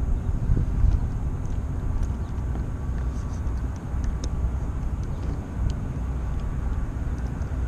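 Wind buffeting a small action camera's microphone on open water: a steady, uneven low rumble, with a few faint ticks about halfway through.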